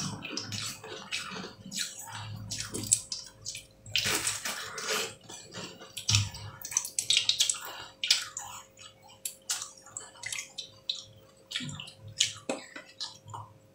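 Melting ice squeezed and crumbled in the fingers, with irregular crackling and squelching as meltwater drips and splashes into a metal tray.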